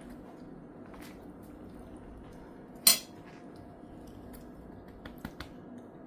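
An eating utensil clinks sharply against a plate about three seconds in, followed by a few lighter clicks of utensil on dish near the end.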